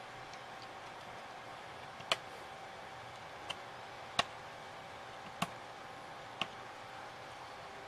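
Five sharp little clicks spaced irregularly over a few seconds as thin laser-cut 3 mm MDF pieces are pressed and snapped into place by hand, over a faint steady hiss.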